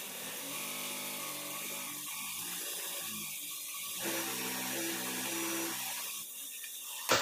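Industrial sewing machine stitching a fold in a fabric strip, running steadily with its motor hum shifting pitch as the speed changes. A sharp click near the end as it stops.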